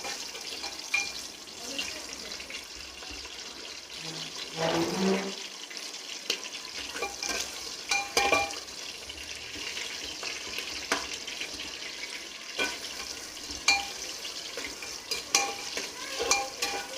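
Onions sizzling as they fry in hot oil in a pan, with a spatula stirring them and now and then scraping and clicking against the pan.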